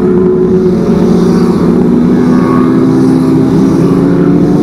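Kawasaki ZX25R's 250 cc inline-four engine running loud through a racing exhaust while riding, the engine note holding fairly steady and edging up in pitch in the middle.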